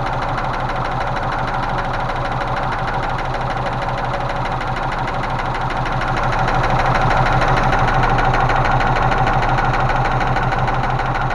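Rover 3.5-litre V8 of a Range Rover Classic idling steadily, with a fast, even ticking over the engine note that grows a little louder about halfway through. It is the constant dull knock the owner puts down to the hydraulic lifters, whose plungers sink in several cylinders.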